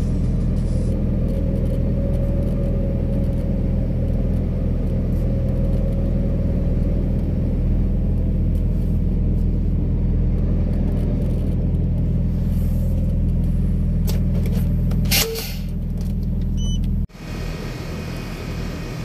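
Scania R 660's V8 diesel engine running steadily at low speed, a deep even drone. A short sharp click about fifteen seconds in, and the drone cuts off abruptly near the end.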